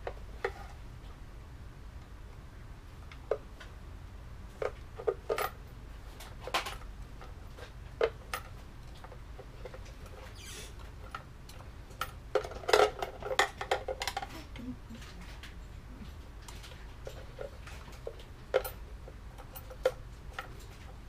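Screwdriver clicking and scraping inside a Mossberg 500 shotgun stock as the stock bolt is unscrewed: scattered light clicks, with a quick run of them a little past the middle, over a low steady hum.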